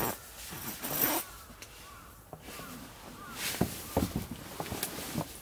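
A zipper being pulled in short strokes, with fabric rustling and a few sharp clicks.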